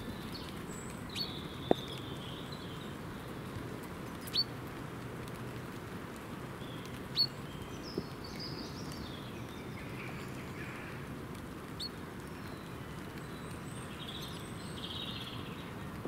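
Steady light rain pattering, with small woodland birds chirping and twittering at intervals. A handful of sharp single clicks stand out, the loudest about 2 and 7 seconds in.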